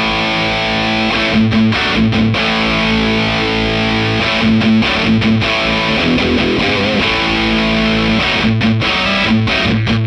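Electric guitar played through a BadCat Lynx 50 valve amplifier set for heavy overdrive: sustained distorted chords, with short choppy stabs about a second and a half in and again near the end.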